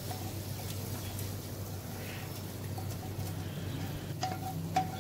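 A spatula scraping sautéed onion and green-chilli masala out of a frying pan into a pot of chicken: a low steady hum through most of it, then a few light knocks and scrapes of the spatula on the pan near the end.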